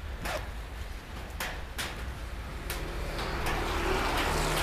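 Thin plastic raincoat rustling and crinkling as it is pulled off, close to a clip-on microphone: a run of sharp crackles that thickens into a denser rustle in the second half.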